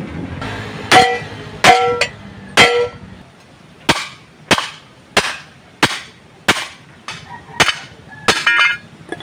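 Hammer blows on galvanised steel: three ringing strikes, then a steady run of about nine shorter, duller blows roughly every two-thirds of a second, with a quick double hit near the end.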